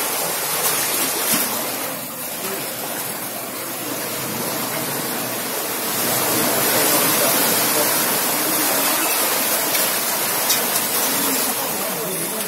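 Seawater surging in and rushing across the floor of a rock cave: a steady rushing, splashing noise that eases about two seconds in and swells again a few seconds later.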